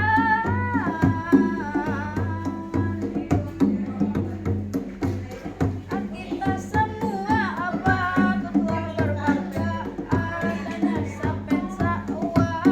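Live music rehearsal: a voice sings an ornamented melody that slides and bends between notes, over a steady drum and percussion rhythm.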